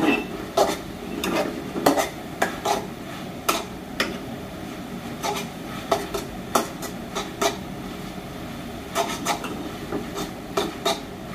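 A spatula stirring and scraping leafy greens frying in a pan, with irregular sharp knocks of the spatula against the pan, roughly one or two a second.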